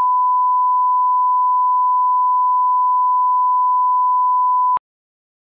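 A steady, pure 1 kHz reference tone of the kind that leads a broadcast advertisement tape, cutting off suddenly near the end and followed by silence.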